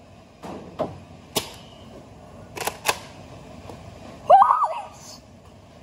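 Sharp plastic clicks and clacks, some in pairs, from a toy foam-dart blaster being handled and primed. About four seconds in comes a short high-pitched yelp from a child.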